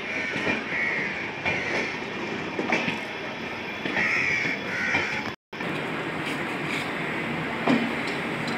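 Departing express train's passenger coaches rolling past, wheels clattering over the rail joints. Short calls, likely crows cawing, come several times in the first half. The sound cuts out briefly just past halfway.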